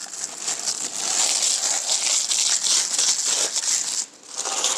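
Crumpled clear plastic sheet crinkling and rustling as hands press and rub it over wet texture paste on a wall, with a brief pause about four seconds in.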